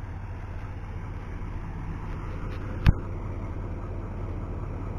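Steady low hum of an idling engine, with one sharp knock about three seconds in.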